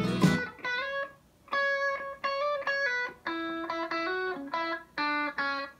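Isolated lead guitar solo track played back on its own: single sustained notes picked one after another with short gaps between them, after the rest of the song drops out about half a second in.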